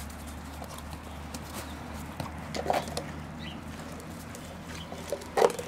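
Two English springer spaniels play-fighting on stone paving: paws scrabbling and claws clicking on the slabs, with two short louder bursts, one about two and a half seconds in and one near the end.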